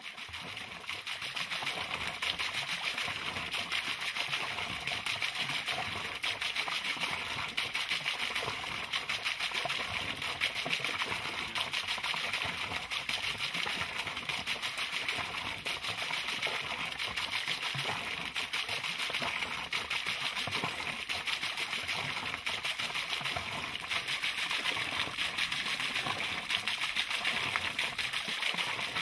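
Water pouring from a spout over a small wooden water wheel and splashing steadily into a garden pond. It fades in over the first second, then holds an even, continuous splashing.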